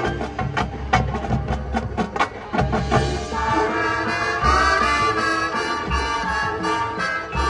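College marching band playing: a quick run of drum hits for about the first three seconds, then the brass comes in with held chords.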